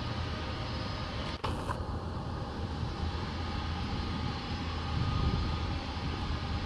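Airbus A320neo's twin turbofan engines running steadily at taxi power, a low hum with a faint steady whine, broken by a brief dropout about a second and a half in.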